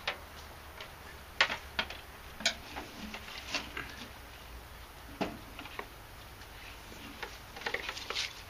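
Irregular clicks and knocks from a battery charger being set down and its cables and clamps handled, with a quick run of clicks near the end.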